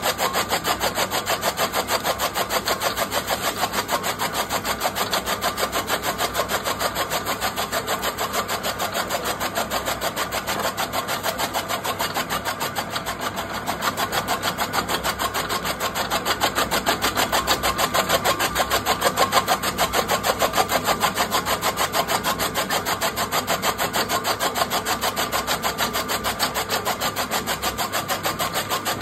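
Electric chaff cutter chopping green fodder stalks: its bladed flywheel slices the fed stalks in a rapid, steady run of chopping strokes over the machine's running.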